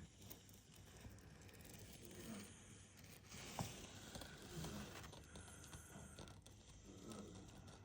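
Near silence: faint room tone, with a single sharp click about three and a half seconds in.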